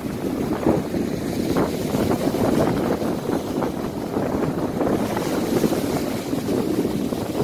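Sea waves breaking and foamy wash running up a sandy beach, a steady surf with wind buffeting the microphone.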